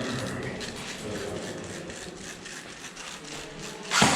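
Faint clicking and clattering, then one sharp loud knock near the end.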